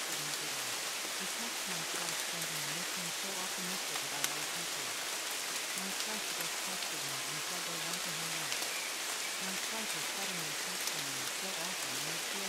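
Steady rain falling, with scattered sharp drop ticks. Underneath, a faint low voice speaks continuously, the subliminal affirmations masked by the rain.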